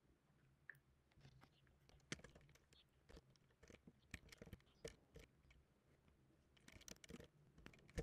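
Near silence with faint, irregular clicks of computer keyboard keys being typed.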